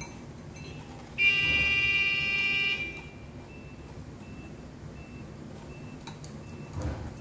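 A horn sounds once, a loud buzzy tone lasting about a second and a half, over faint short high beeps repeating about twice a second.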